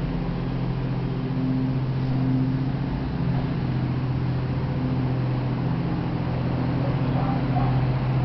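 Car running at a steady pace: a constant low engine hum with road noise.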